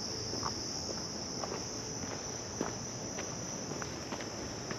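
Crickets trilling in a steady, unbroken chorus, with a few light footsteps on the trail at irregular intervals.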